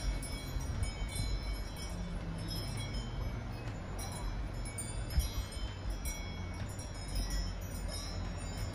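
Wind chimes tinkling irregularly in gusting wind, with a low rumble of wind buffeting the microphone.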